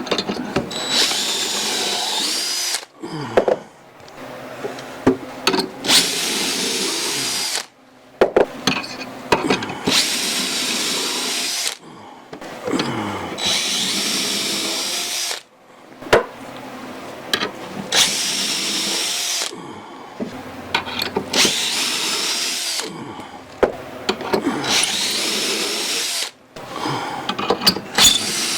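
Power drill boring dowel holes in wooden boards, in repeated runs of about two seconds, each spinning up and winding down, with sharp knocks of wood being handled between runs.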